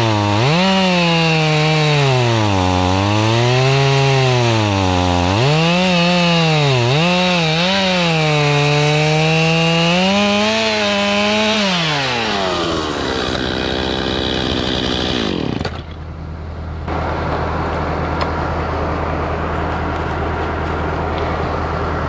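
Stihl chainsaw cutting through dead wood at full throttle for about twelve seconds, its pitch repeatedly sagging as the chain loads in the cut and rising again. Then it winds down, and after a short lull a steady low engine hum carries on.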